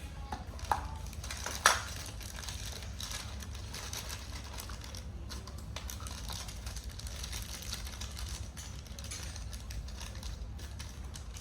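A small toy box and its packaging are handled and opened by hand. Two sharp clicks come about a second and two seconds in, then faint rustling and small ticks over a steady low hum.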